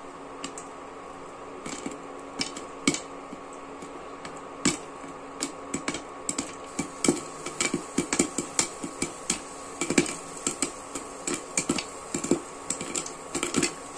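Popcorn kernels popping in butter in a covered pan: sharp single pops, few at first, then coming faster from about six seconds in, over a steady hum.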